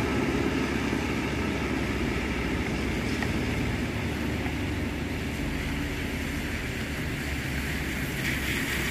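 Steady rush of water pouring out of a dam spillway gate and cascading into the river below.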